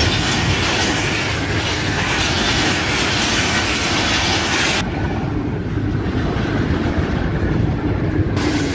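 Passenger coaches of a Pakistan Railways train passing close by at speed: a loud, continuous rush of wheel and rail noise. About five seconds in the sound turns duller as the high hiss drops away, then brightens again near the end.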